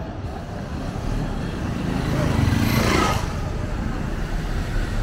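A car passing close by on a wet road: engine and tyre hiss swell to a peak about two and a half seconds in, then fade. Steady traffic noise underneath.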